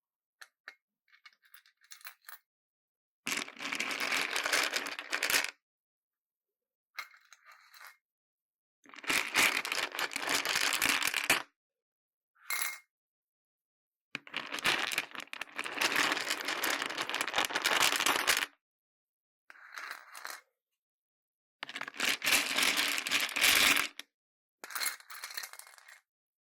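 Handmade slime packed with assorted beads being squeezed and pressed by hand, the beads clicking and clattering against each other in a crackly rattle. It comes in about four longer bouts of a few seconds each, with a few short faint ones between, and the pauses are dead silent.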